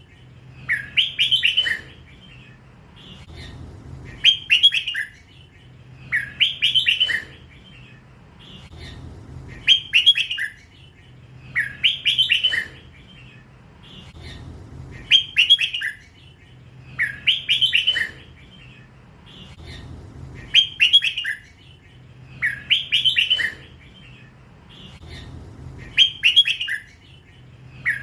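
Young hybrid red-whiskered bulbul, still in first plumage, singing in the drawn-out 'lak wai' style. It repeats a short, bright warbled phrase about every two seconds.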